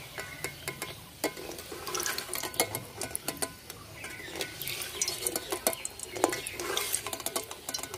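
Metal slotted spoon scraping and clinking against an aluminium kadai as fried snacks are stirred and lifted out of shallow oil: many short irregular clicks and scrapes, over a faint frying hiss from the oil.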